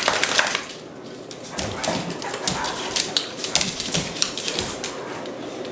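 Doberman and pit bull play-fighting on a hardwood floor: rapid clicking and scrabbling of claws and jaws, with short low growls and whines between the dogs.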